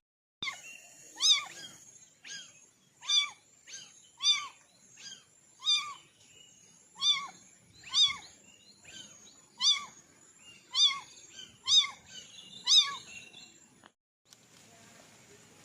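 A kitten meowing over and over, about a dozen short high-pitched mews, each rising and falling in pitch, roughly one a second; they stop shortly before the end.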